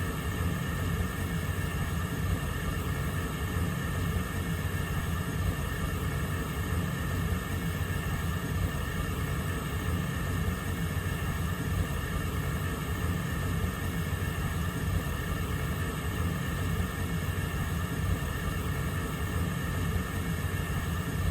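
Gas stove burner flame burning steadily: an even rushing noise with a low rumble.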